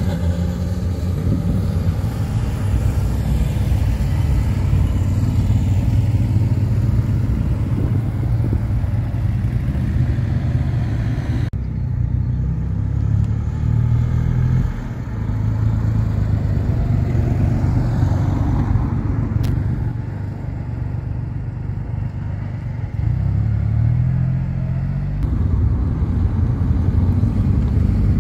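Several motorcycles riding past one after another, their engines running steadily. About three-quarters of the way through, one engine climbs in pitch as it accelerates away.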